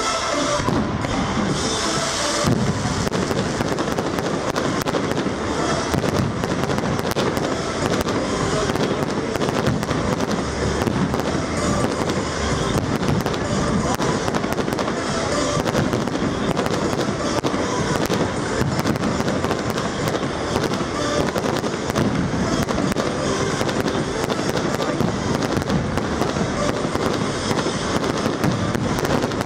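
Fireworks display going off without a pause: dense crackling and popping with shell bursts mixed in, over the show's accompanying music.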